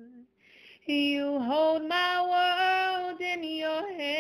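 A woman singing a slow worship song: a phrase fades out, a breath is drawn, and about a second in a new phrase begins with long held notes.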